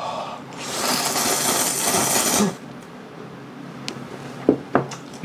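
A person slurping a mouthful of instant ramyun noodles in one loud slurp of about two seconds, then quieter chewing with a few sharp clicks near the end.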